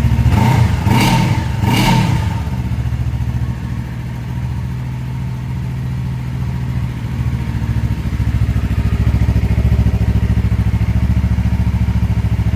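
2023 Yamaha R3's parallel-twin engine running on a cold start with the muffler deleted: two quick throttle blips in the first two seconds, then a steady idle that dips a little for a few seconds before coming back up.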